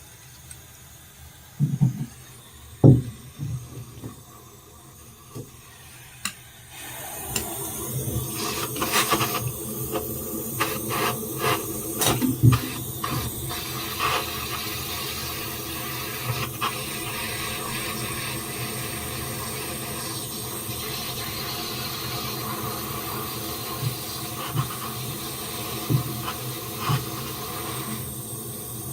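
A few handling knocks, then about seven seconds in a gas soldering torch starts and burns with a steady hiss, heating a copper pipe joint for soldering, with a run of sharp clicks and taps soon after it lights.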